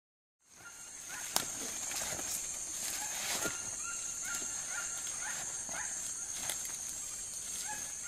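Tropical rainforest ambience fading in after a brief silence: a steady high-pitched insect drone, a short rising call repeated about every half second, and a few sharp clicks.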